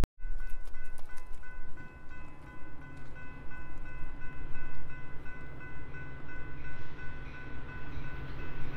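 A train rumbling through a railroad grade crossing while the crossing's warning bells ring steadily.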